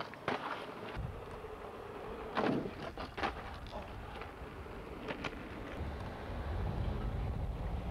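Skateboard clattering on an asphalt road: several sharp clacks as the board lands and rolls, over a noisy background that swells into a low rumble in the last second or so.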